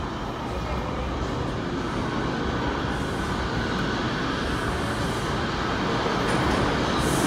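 New York City subway train approaching through the tunnel into an underground station: a low, steady rumble that grows gradually louder.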